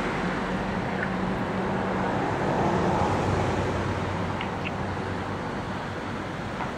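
Steady road-traffic noise with a low engine hum that swells a little around the middle, as a vehicle passes, then eases off.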